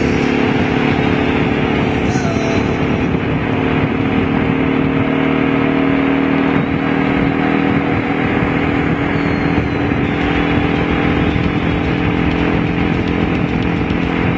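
Honda V-Twin Magna 250 motorcycle's V-twin engine running at a steady, unchanging pitch while cruising, with a heavy rush of wind noise on the microphone.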